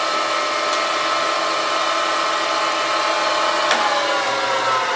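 Bridgeport step-pulley vertical mill running with its 1 hp three-phase motor and spindle turning, a steady whine of several tones over a hiss, as the quill power-feeds on the upstroke. A click comes near the end, and then the pitch sinks as the spindle slows.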